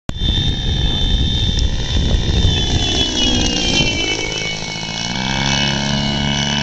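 Radio-controlled model airplane making a close pass with its engine running, several whistling Nerf projectiles mounted on it sounding high steady whistles. The whistles slide down in pitch as it goes by, about three to four seconds in, and the engine's hum comes through more plainly after.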